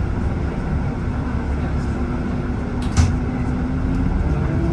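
Bus engine running while the bus stands still, heard from inside the cabin as a low steady rumble, with a sharp knock about three seconds in.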